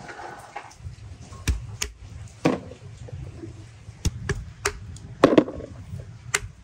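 Raw chestnuts being handled and knocked about, making a series of irregular sharp knocks and taps, about eight in all.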